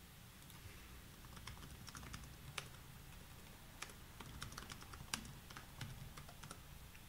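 Faint, irregular keystrokes and clicks on a computer keyboard, a few a second, over a low steady hum.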